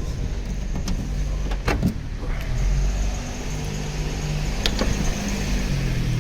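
A motor vehicle running with a steady low rumble, with a few sharp knocks about two seconds in and again near the end.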